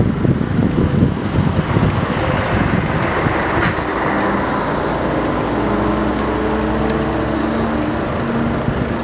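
Wind buffeting the microphone from a moving vehicle, then a vehicle engine running with a steady hum from about four seconds in, after a brief hiss.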